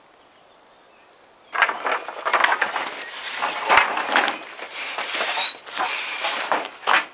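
Quiet at first, then, about a second and a half in, a busy run of irregular rustling, scraping and light knocking handling noises.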